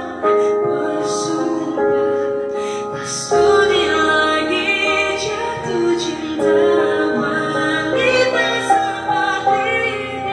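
A woman singing a song over instrumental accompaniment, holding long notes with vibrato.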